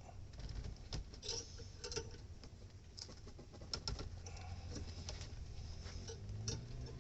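Scattered light clicks and taps of small objects being handled, over a low steady hum.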